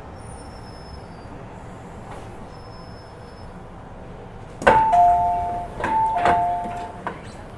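Two-tone electronic chime on board an MTR Island Line train, a higher note and a lower note sounding together twice, starting with a sharp knock about two-thirds of the way in. It plays over the steady low rumble of the train.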